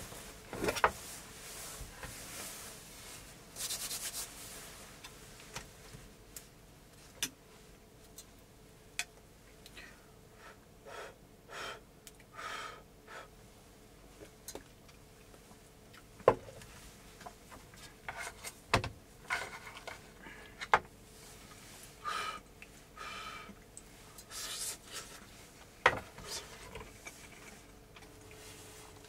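Aluminium mess tin and cookware handled on a wooden table: cloth rubbing and rustling, a lid lifted off and set down, a metal spoon in the rice, with scattered light clinks and about five sharper knocks. A faint steady hum runs underneath.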